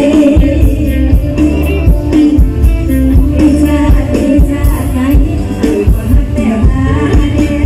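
Live mor lam band music at full volume, an upbeat Isan song driven by a steady kick-drum beat with electric guitar and keyboard, and a woman singing over it.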